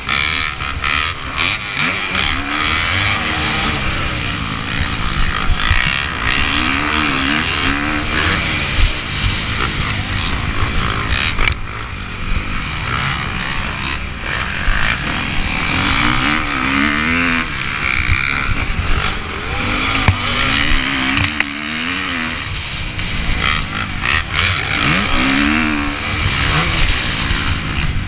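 Motocross bike engine at racing speed, heard from a camera mounted on the bike. The revs rise and fall again and again through the corners, under a steady rush of wind and noise.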